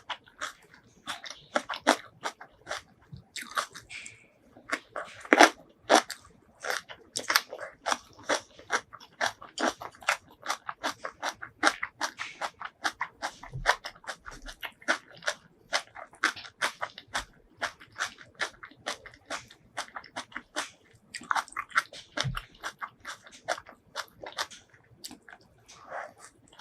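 Close-miked eating: steady chewing with crunchy bites, a quick run of short wet, crackly mouth clicks a few times a second.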